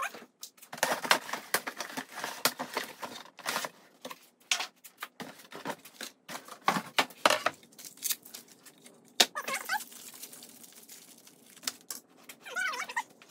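Workshop handling noise: a cardboard box and a plastic hose-reel bracket being moved about on a wooden bench, with rustling and a string of irregular clicks and knocks.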